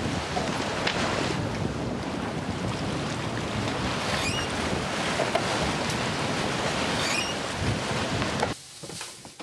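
Wind buffeting the microphone over the rush of choppy water along the hull of a sailing yacht under way. It cuts off abruptly near the end.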